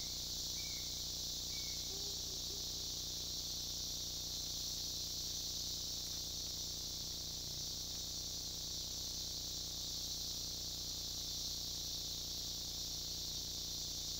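Steady high-pitched chorus of rainforest insects, even throughout, with a few short chirps from another animal in the first two seconds and a low steady hum underneath.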